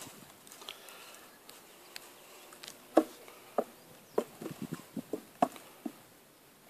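A horse's hooves knocking on a low wooden platform as it steps up onto the board and shifts its feet. There are about nine sharp hollow knocks starting about three seconds in, the first the loudest.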